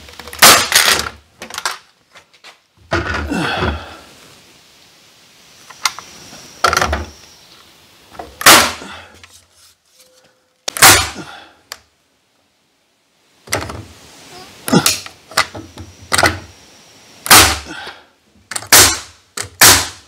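Pneumatic nail gun driving nails into a wooden frame: about a dozen sharp shots spread out with pauses between them, three in quick succession near the end.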